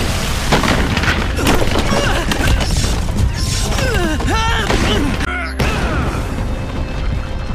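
Cartoon earthquake sound effects: a heavy rumble with rock crashing and booming, over dramatic action music. The sound breaks off briefly about five and a half seconds in, then the rumbling resumes.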